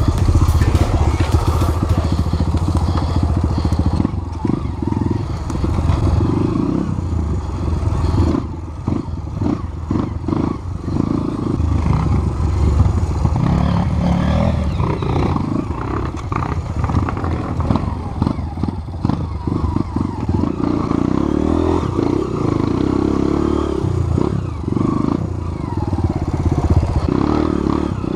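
Off-road trail motorcycle engine running as it is ridden, its pitch and level rising and falling throughout, with scattered knocks and clatter from the rough trail.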